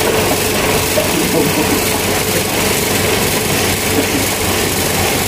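Air-conditioner compressor and fan motor running off a dual run capacitor: a steady electrical hum with an even rush of air.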